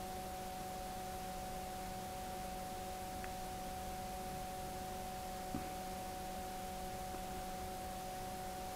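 Steady background hum of a few held tones over hiss, the recording's own noise with no other activity, and one faint tick about five and a half seconds in.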